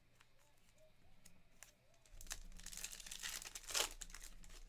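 A foil trading-card pack being torn open and its wrapper crinkled, with the loudest tear a little before the end. A few faint light clicks come first.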